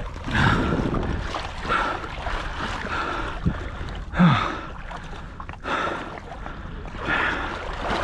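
Someone wading through shallow marsh water, with a splash of water at each stride, about one every second and a half.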